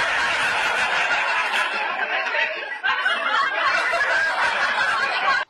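Several people laughing hard, a dense continuous stretch of laughter that stops abruptly near the end.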